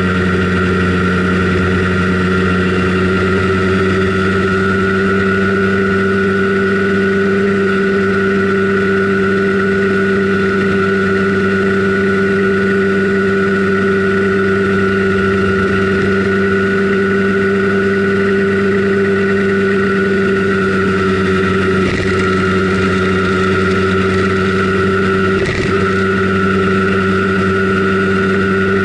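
Simson Schwalbe KR51/2 scooter's 50 cc single-cylinder two-stroke engine running at a steady cruising speed while riding along. The pitch stays nearly constant, with two brief dips near the end.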